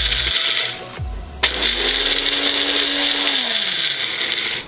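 Personal bullet-style blender grinding cornflakes in two pulses: the motor stops under a second in, starts again with a click about a second and a half in, and runs until it winds down near the end.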